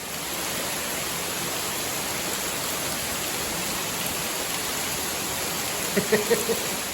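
Waterfall, water falling in a steady, unbroken rush. A brief voice cuts in faintly near the end.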